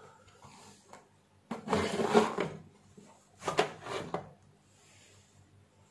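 Two short bursts of rubbing and scraping handling noise, one about a second and a half in and another around three and a half seconds, with quiet between.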